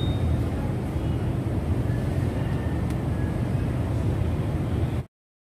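Toyota Fortuner engine running at a steady idle, a low rumble with the air filter removed; it stops suddenly about five seconds in.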